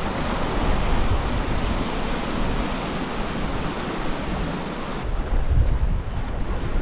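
Ocean swell surging and washing over a rock ledge, with wind buffeting the microphone in gusts.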